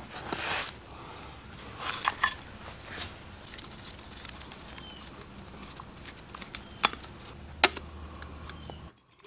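Light clicks and taps of a screwdriver and metal carburetor parts being handled during disassembly, with two sharper metallic clicks near the end, over a faint steady background hum. The sound drops away abruptly just before the end.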